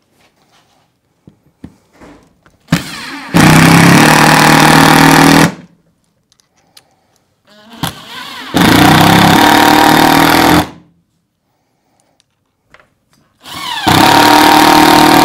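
Power drill with a 3/8-inch socket driving #14 screws through a snow blocker bracket into the roof sheathing: three separate runs, each starting softly, then running hard for about two seconds and stopping sharply.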